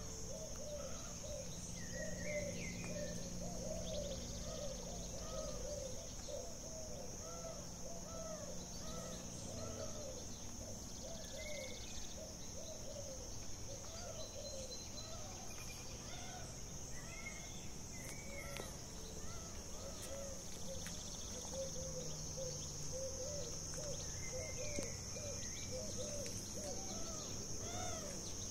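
Woodland ambience: a steady high-pitched insect drone, with many short chirping animal calls, each rising and falling, repeated in quick runs.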